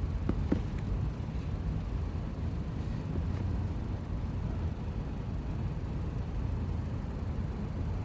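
Steady low background rumble, with a couple of faint clicks about half a second in.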